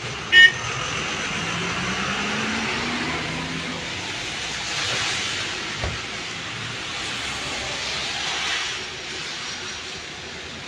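Road traffic on wet asphalt: tyres hissing on the rain-soaked road and engines of passing cars and a bus, swelling as vehicles go by about five and eight seconds in, with one engine note rising in pitch in the first few seconds. A short, loud high beep right at the start is the loudest sound.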